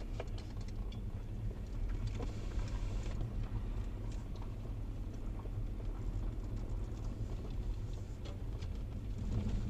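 Car's road noise heard from inside the cabin while driving slowly on a gravel track: a steady low rumble with the light crackle of loose gravel under the tyres.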